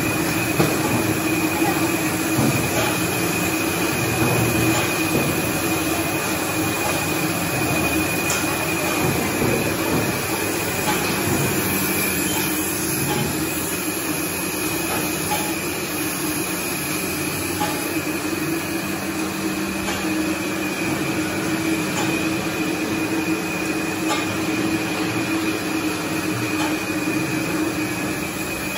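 Soft drink bottling line running: bottle conveyor, its geared drive motor and the filling machine. It makes a steady mechanical hum with a thin high whine over it.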